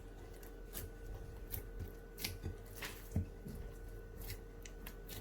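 Hands kneading naan dough, faint soft squishes and light taps at an irregular pace, over a faint steady hum.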